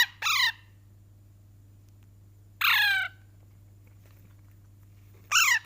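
Pet parrot squawking: three loud, harsh calls, each falling in pitch, the middle one the longest.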